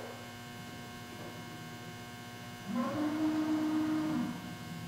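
Altendorf F45 Elmo sliding table saw's powered blade-positioning drive running for about a second and a half, a steady whine that rises in pitch as it starts, moving the blade to its programmed tilt and height. A steady electrical hum underlies it.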